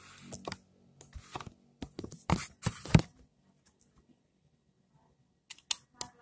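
Handling noise from a toy foam-dart blaster and the camera: a run of sharp clicks and knocks with rustling in the first three seconds, then two more clicks near the end.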